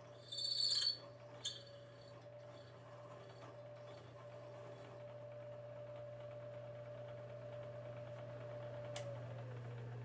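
Bridgeport vertical milling machine running with a steady whine. About nine seconds in it is switched off with a click, and the whine falls in pitch as the spindle spins down. A short, high-pitched metallic squeal and a click come near the start.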